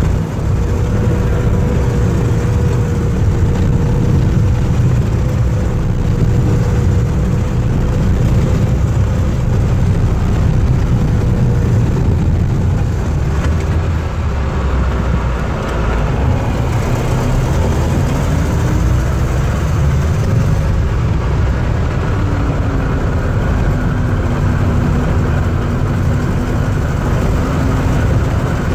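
Vintage snowcat engine running steadily under way, with track and drivetrain noise, heard from on board as it drives along a packed snow trail. The engine's pitch shifts a little past halfway.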